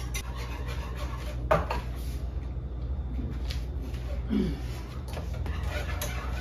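Kitchen handling sounds over a steady low hum: one sharp knock about a second and a half in, and a short low voice sound a little after the middle.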